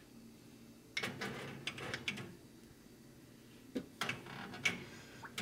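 A handful of light knocks and clatters of kitchenware being handled, in two bunches, with quiet room tone between.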